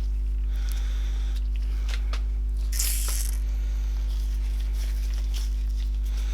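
Greasy handling noises of a CV joint being packed with grease: small squelches and clicks, with a short tearing or rustling burst about three seconds in, over a steady low electrical hum.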